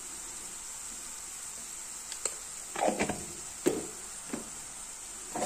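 Onion and spice paste frying in oil in a non-stick kadai: a faint steady sizzle, with a few soft knocks and clicks in the middle.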